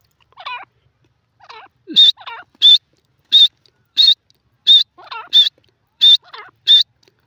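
Grey francolin calling: a run of eight short, high, evenly spaced notes, about three every two seconds, starting about two seconds in, with softer, lower notes before and between them.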